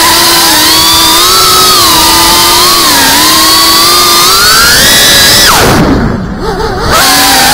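FPV quadcopter's brushless motors and propellers whining, the pitch rising and falling with the throttle. About five and a half seconds in the whine drops sharply and quietens, as on a throttle cut, then comes back near the end.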